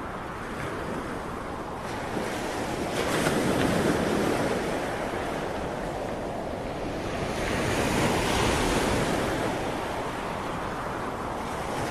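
Sea waves breaking and washing on the shore, two waves swelling louder about three and eight seconds in, with wind buffeting the microphone.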